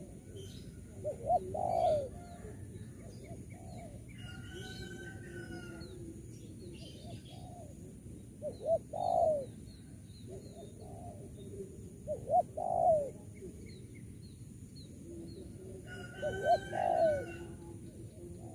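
Spotted dove cooing: four phrases a few seconds apart, each two short notes followed by a longer one.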